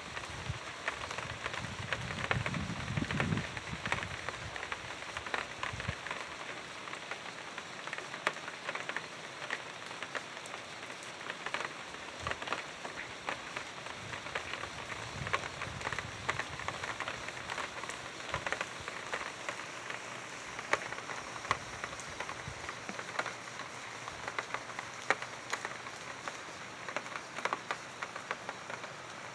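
Steady rain falling, with many distinct drop hits ticking through it. There is a low rumble under it for the first few seconds.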